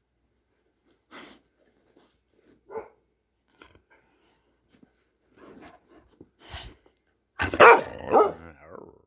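A dog barking while playing: a few short, quieter sounds, then two loud barks close together near the end.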